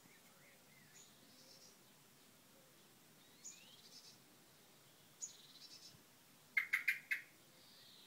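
Male common blackbird giving a quick run of four or five loud, sharp chuck calls about six and a half seconds in. A few faint, high bird calls come before them.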